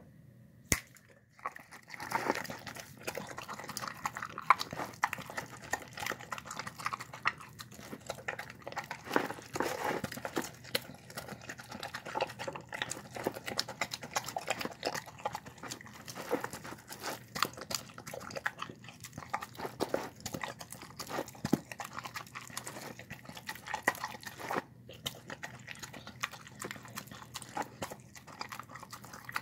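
A dog eating soft boiled rice from a bowl: dense, irregular wet chewing, smacking and lapping. It starts about two seconds in, after a single sharp click.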